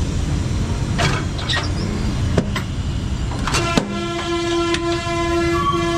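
Busy background rumble with a few sharp clicks and knocks, then a long steady horn-like tone that starts about halfway in and holds for about three seconds.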